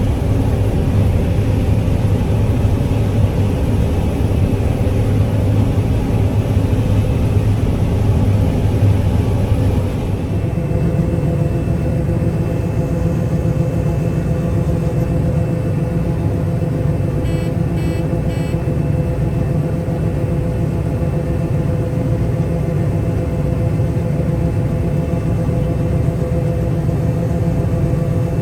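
Farm machinery engine running steadily under load, a deep rumble whose tone shifts and loses its high hiss about ten seconds in. A short run of faint high beeps sounds about two thirds of the way through.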